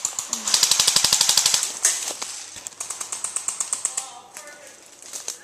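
Airsoft electric gun firing on full auto: a long, rapid burst of clicking shots starting about half a second in and lasting over a second, then a second, quieter burst around three seconds in.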